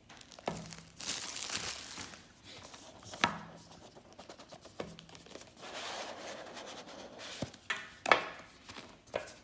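Cardboard product box being opened and its contents handled: rustling and scraping, with several sharp taps and knocks.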